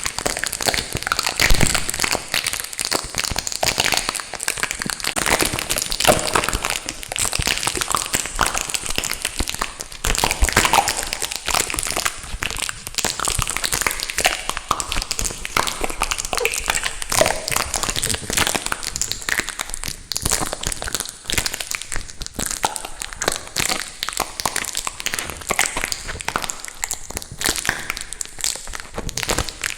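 Adhesive tape stuck over a microphone being handled, with close, continuous crinkling and crackling full of small pops.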